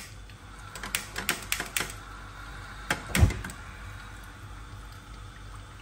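Several sharp clicks in quick succession about a second in, then a louder knock with a dull thud about three seconds in, over a faint steady hiss: cookware on a lit gas stove.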